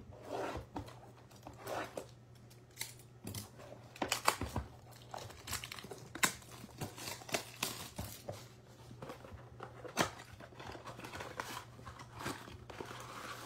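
Plastic shrink wrap being torn off a cardboard trading-card box and crinkled, with irregular crackles and snaps, then the box's cardboard flap pulled open near the end.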